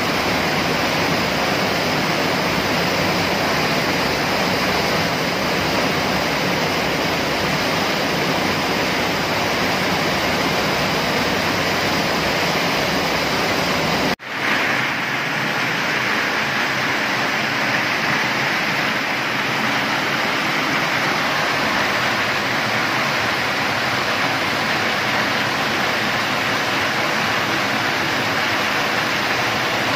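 Steady rush of water driving a small locally made crossflow hydro turbine. About fourteen seconds in, the sound drops out for a moment and comes back brighter and hissier.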